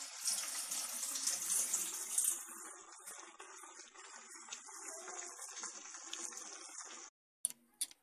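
Mussels in a sour-cream sauce sizzling in a frying pan on a gas stove: a steady hiss that is loudest in the first two seconds and cuts off suddenly about seven seconds in.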